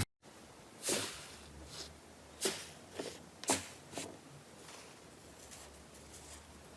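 Slime being handled: about five short, soft squishes and pops in the first four seconds, then only a faint hiss.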